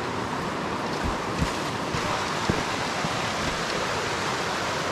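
Fast, shallow river water rushing over a rocky riffle: a steady, even rush. Two soft thumps come through it, about a second and a half and two and a half seconds in.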